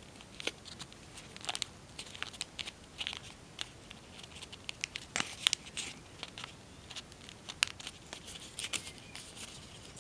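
A sheet of tissue foil (tissue paper bonded to aluminium foil) crinkling and crackling as fingers fold and crease it into mountain folds: irregular sharp crackles, a few louder ones about halfway through.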